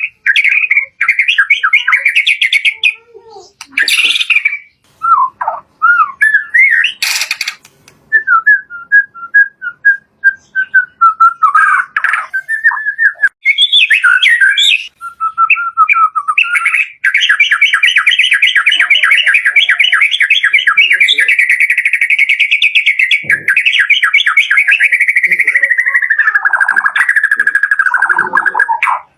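White-rumped shama (murai batu) singing loudly in varied phrases of whistles, chips and harsh notes, with a few sharp clicks. About 17 seconds in, the song turns into a long, fast trill that slides lower near the end.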